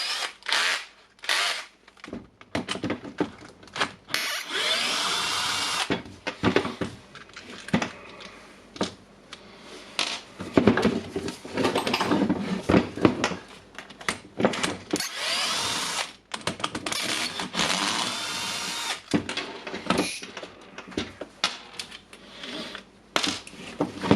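A small power tool, such as a drill or power screwdriver, runs in short bursts of a couple of seconds while a hammer drill is being taken apart, between clicks and knocks of metal parts being handled.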